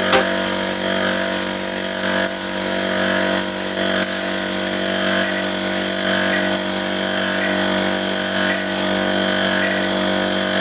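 Hose-fed paint spray gun spraying finish: a steady motor hum from the air supply with a high spray hiss that breaks off briefly many times as the trigger is released and pulled.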